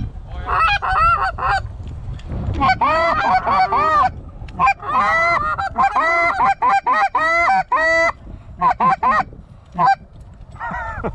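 Canada goose honks and clucks in quick runs of several short notes, each rising and falling in pitch, with brief pauses between runs.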